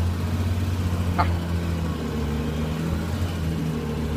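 Unimog 404's petrol straight-six engine running steadily as the truck drives slowly, heard from the open, cab-less driver's seat.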